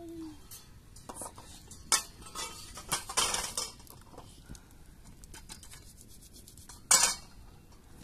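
Tent-frame poles clattering and knocking together as they are set down onto a pile, in a few rattling bursts over the first half and one sharp, loudest knock near the end.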